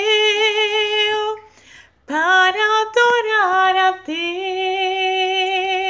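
A woman singing a Portuguese worship song unaccompanied, holding long notes: a held note at the start, a short break about a second and a half in, then a few moving notes and a long held note to finish.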